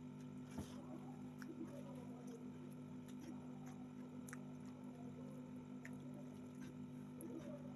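Faint close-up eating sounds: chewing with soft, wet squishing and small clicks of the mouth and food, over a steady low hum.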